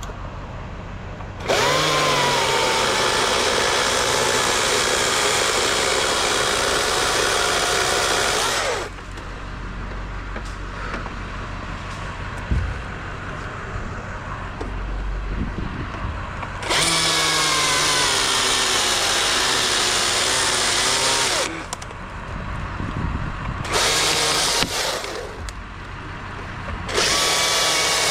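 Two-stroke chainsaw revving to full throttle and cutting in four stretches: a long one of about seven seconds near the start, then shorter ones. Its pitch sags slightly under load, and it drops back to a low idle between cuts.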